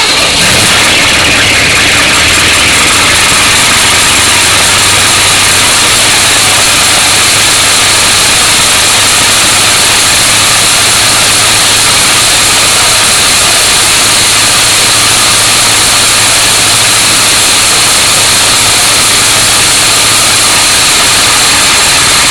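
A 1966 Mustang's 289 V8 settles into a steady idle about a second in, with a loud, steady high noise from the belt-driven front of the engine. The owner traced this noise to the alternator under load rather than the fan belt.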